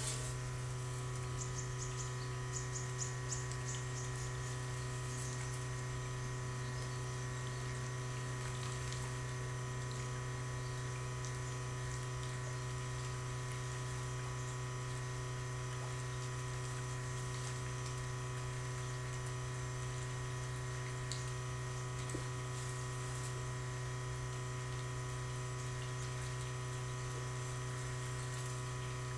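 A machine running with a steady low hum and several steady higher tones; a short run of faint high ticks about two seconds in.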